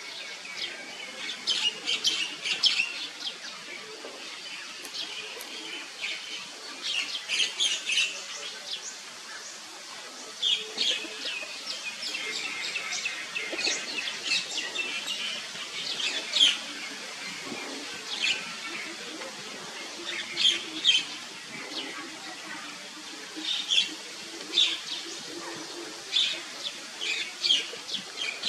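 Birds chirping: short clusters of high, quickly repeated notes, recurring every second or two.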